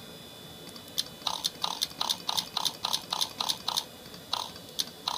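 A quick run of short clicks, about three a second, from an iMac G3 and its mouse as menus and windows are clicked through with Mac OS Platinum Sounds enabled. The clicks don't keep pace with every item passed over: the Platinum Sounds lag, which the owner puts down to virtual memory.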